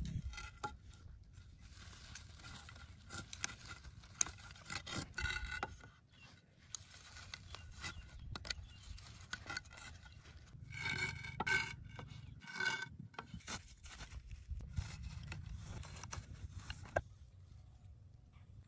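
Rope rubbing and scraping against green bamboo poles as lashings are wrapped and pulled tight, with small clicks of the poles being handled. The rubbing comes in short irregular strokes, louder in two runs about eleven and thirteen seconds in.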